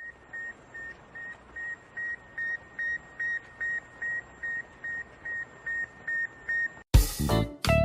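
A run of short electronic beeps at one steady high pitch, about three a second and growing louder. They stop about seven seconds in, when loud music with plucked guitar begins abruptly.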